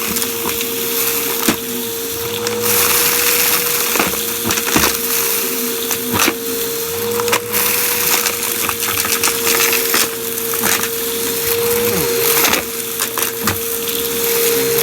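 Vacuum cleaner running with a steady motor whine while sucking up crunchy debris, which crackles and clicks sharply through the hose.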